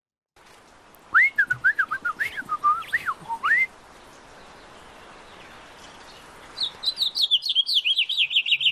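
A person whistling a warbling imitation of a house finch's song. Then, about six and a half seconds in, a house finch's real song starts: a long, fast, high-pitched warble.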